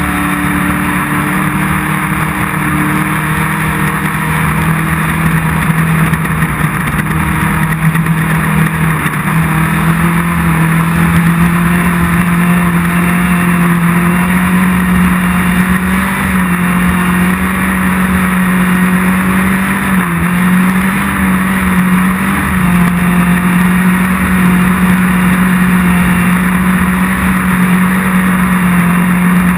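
Off-road race vehicle's engine running hard at high, fairly steady revs, its pitch stepping slightly up and down, over a constant wash of rushing noise.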